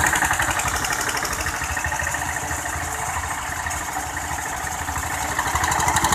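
Diesel engines of two Eicher 242 tractors running under load as they pull against each other, a steady rapid chugging with no pauses.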